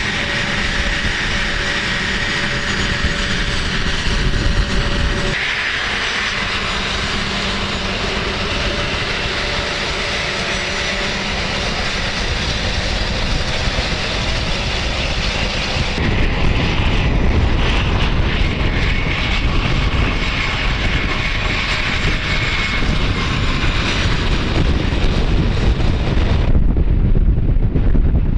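Turbofan engines of A-10 Thunderbolt II jets running: a steady, loud jet noise with a high whine, which changes abruptly several times.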